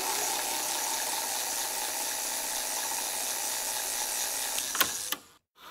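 Steady crackling static, a digital glitch sound effect, with a few sharp clicks near the end before it cuts off suddenly.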